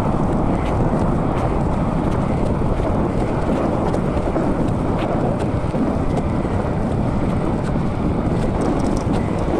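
Steady wind rush buffeting the microphone of a camera carried on a moving mountain bike, a dense, low, unbroken noise.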